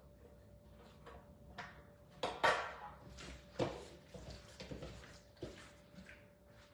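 Kitchen handling noises: a string of short rustles, taps and knocks, the loudest about two seconds in. A seasoning shaker is used and set down on the counter, and a gloved hand mixes seasoned raw chicken pieces in a bowl.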